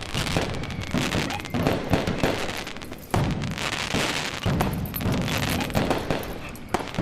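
A fireworks finale: many fireworks crackling and popping in rapid, overlapping bursts, growing sharply louder about three seconds in.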